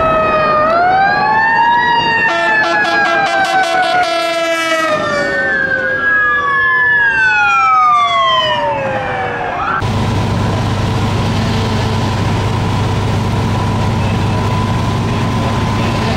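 Emergency vehicle sirens from a passing fire engine and a fire chief's SUV, several overlapping and rising and falling in pitch, with a fast warble about two seconds in and long slides down in pitch near the middle. About ten seconds in, it cuts to the steady drone of a parked fire engine's diesel engine running.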